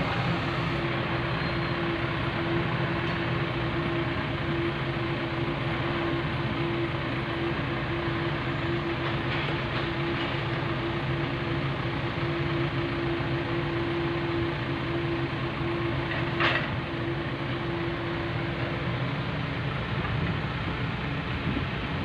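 Case backhoe loader's diesel engine running steadily, with one sharp clank about three-quarters of the way through.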